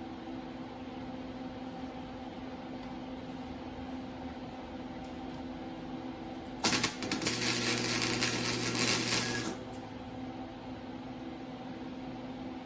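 A power tool works on metal in one loud burst of about three seconds, starting a little past halfway, over a steady low hum.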